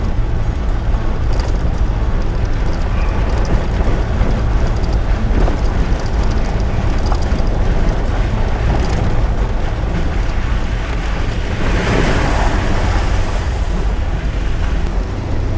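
A vehicle driving slowly along a rough, wet dirt road: a steady low rumble of engine and tyres, with wind buffeting the microphone. A louder rushing swells up about twelve seconds in and fades again after a couple of seconds.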